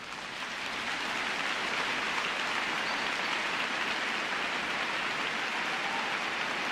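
Steady rain-like hiss that fades in over the first second, then holds level.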